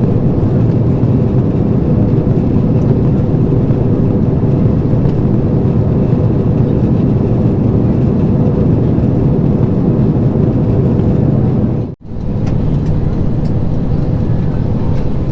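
Steady jet engine and airflow noise heard inside the cabin of an Airbus A321 from a rear window seat. It cuts out abruptly for a moment about twelve seconds in, then comes back at the same level.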